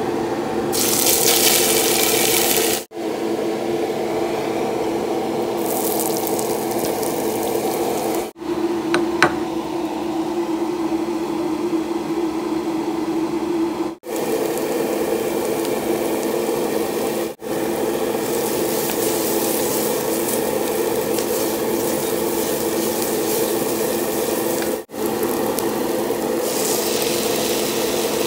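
Steady kitchen cooking noise: a hiss with sizzling from food cooking in a pot on a gas stove, over a constant hum. It is broken by several brief drop-outs.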